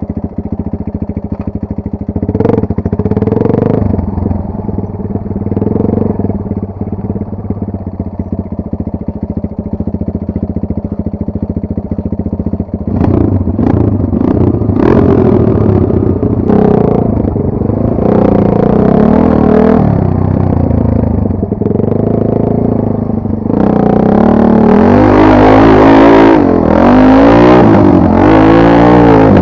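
Dirt bike engine running off-road and being revved up and down repeatedly, with hard, loud revving near the end.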